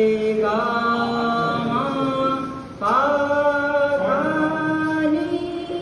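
A voice singing long held notes without words, moving to a new note every second or so, each note sliding up into pitch as it starts.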